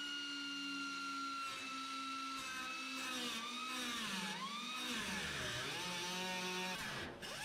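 Cutoff wheel spinning at speed and cutting an angled slit through thin car floorpan sheet steel. Its steady whine sags in pitch several times as the wheel bites into the metal. It drops away briefly near the end and spins back up.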